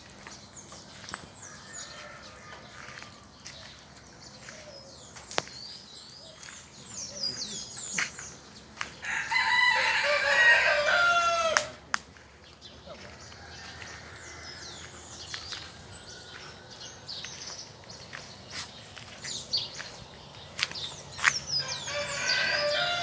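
A rooster crows once, loudly, for about two and a half seconds near the middle. Small birds chirp throughout, with scattered sharp clicks.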